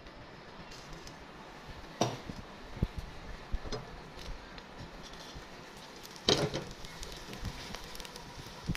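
Quail eggs frying in hot oil with a steady sizzle, with a few short clinks and knocks of a utensil against the pan; the loudest cluster comes about six seconds in.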